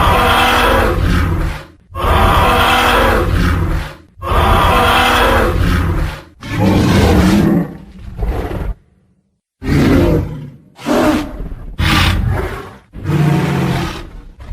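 Tyrannosaurus rex roar sound effect: a series of about eight loud, rough roars, each one to two seconds long, with a short silent break a little past halfway.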